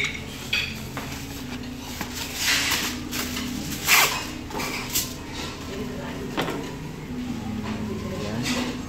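Aluminium foil being pulled off its roll, torn against the box's cutting edge and crinkled as the sheet is laid flat: several short crinkling rustles, the sharpest about four seconds in.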